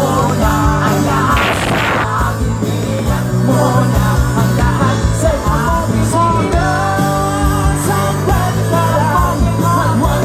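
Live rock band playing a song with a lead singer over bass and drums.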